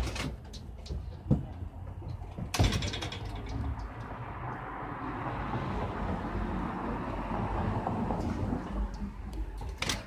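A vehicle passing by: a rush of tyre and engine noise that swells through the middle and fades near the end, with a few sharp clicks early on.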